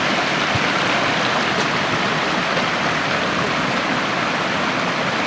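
Small forest stream running with a steady rush of water.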